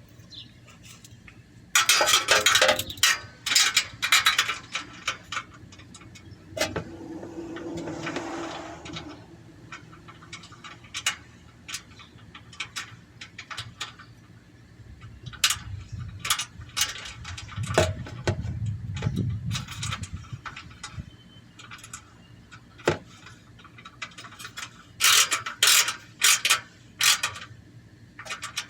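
Hand ratchet wrench clicking in several quick bursts as the bolts of a catalytic converter heat shield are tightened, with some scraping of metal between bursts.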